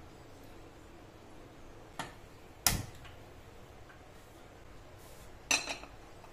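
Kitchenware knocks and clinks: a click about two seconds in, a louder knock a moment later, and a short metallic clatter near the end as a stainless-steel pressure cooker is set on the gas stove.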